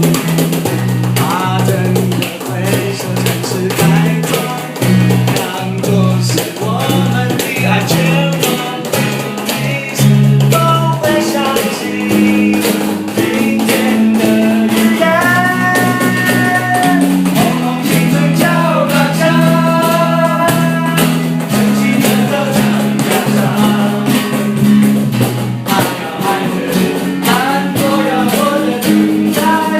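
A band playing live in rehearsal, between sung lines: drum kit keeping a steady beat, a bass line and guitar, with held melody notes about halfway through.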